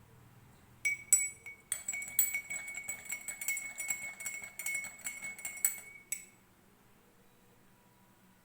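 A spoon stirring turmeric into a glass of hot milk, clinking rapidly against the sides with a ringing tone. It starts about a second in and stops after about five seconds.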